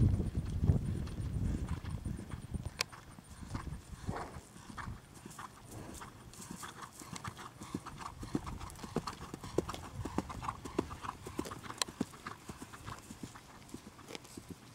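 Hoofbeats of a ridden Thoroughbred horse on dry grass turf, a quick rhythm of sharp strikes. They are loudest at first and grow fainter as the horse moves away.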